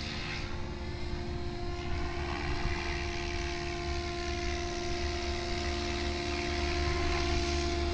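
Gaui X7 electric radio-controlled helicopter flying, its motor and rotor whine continuous with the pitch bending slightly up and down. It grows a little louder as the helicopter comes closer.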